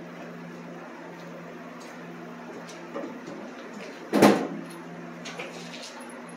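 A steady low hum with one loud knock about four seconds in and a few fainter clicks and knocks.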